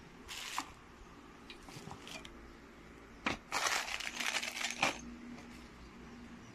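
Plastic packaging and a clear bag of bolts crinkling and rustling as the parts of a TV wall-mount bracket are handled in their box: a brief rustle near the start, then a longer spell of crinkling around the middle.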